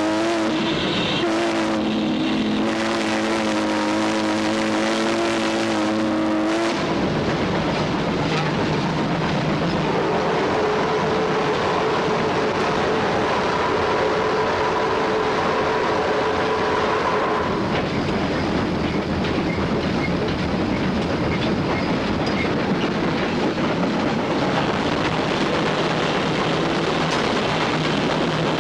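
Cab noise of US Army 2-8-0 steam locomotive No. 610 under way, a steady din of the running engine and the wheels on the rails. A long multi-note steam whistle blast cuts off sharply about seven seconds in, and a softer held tone sounds for several seconds a little later.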